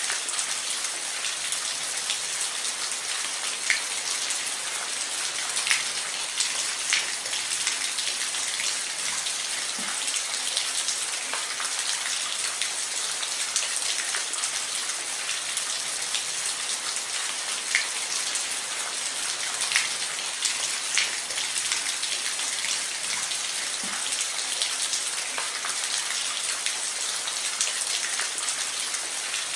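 Rain falling on a roof: a steady hiss with scattered louder single drops striking.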